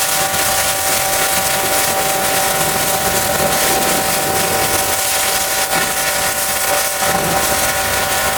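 Pressure washer running: a steady hiss of the water jet over an even machine whine.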